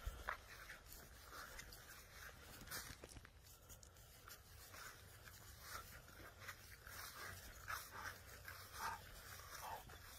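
Faint, irregular soft rustles and small sounds of a golden retriever moving nose-down over frosty grass.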